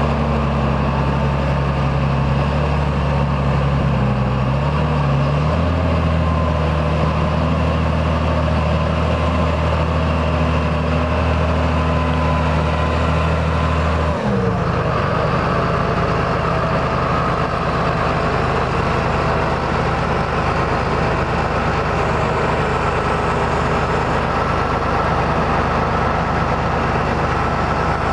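John Deere 8410 tractor's six-cylinder diesel engine running steadily. About halfway through, its steady low note falls in pitch and gives way to a rougher, even sound at the same loudness.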